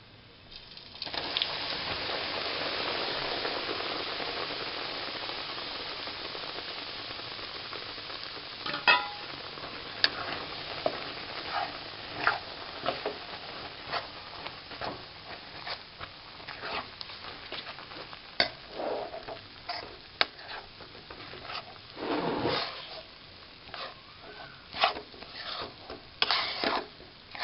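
Gram flour hitting hot ghee in a kadai: a sizzle that starts suddenly about a second in and slowly dies down. Then a steel spoon scrapes and clicks against the pan as the flour is stirred into the ghee, over a fainter, lasting sizzle.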